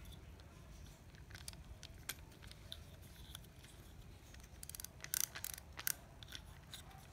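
Olympic VX800 spinning fishing reel being worked by hand as its drag is loosened: scattered light mechanical clicks, then a quick run of sharp clicks and a few louder ones about five seconds in.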